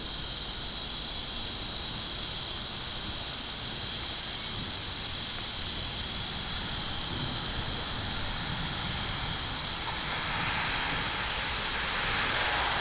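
Thunderstorm noise: a steady rushing hiss that grows louder about ten seconds in.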